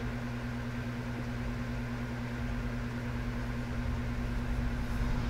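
Steady low electrical hum with an even hiss, a small motor or appliance running, with a low rumble swelling slightly near the end.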